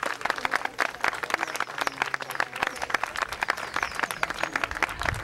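Audience applauding, a dense patter of hand claps at the end of a storytelling performance.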